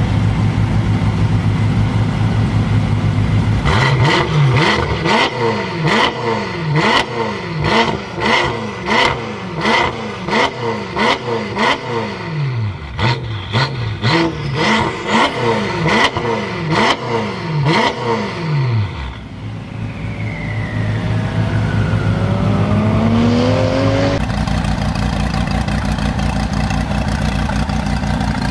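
BMW M5 F10's twin-turbo V8, breathing through a Meisterschaft aftermarket exhaust, revved while standing still. It idles at first, then gives a rapid string of short throttle blips, about one a second, each rising and falling sharply in pitch. It settles back to idle, then makes one slower, longer rev climbing in pitch that cuts off suddenly, and a steady engine drone follows.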